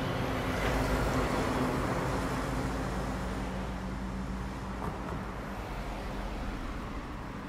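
A motor vehicle's engine droning low and steady with road noise, loudest about a second in and slowly fading as it moves off.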